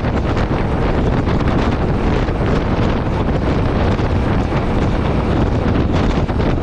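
Steady wind rushing over the microphone of a Yamaha Ténéré 700 at highway speed, with the bike's engine and road noise underneath.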